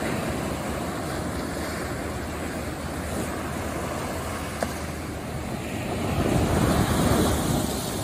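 Ocean surf breaking and washing up a sandy beach: a steady rush of water that swells louder about six seconds in as a wave comes ashore, then eases again.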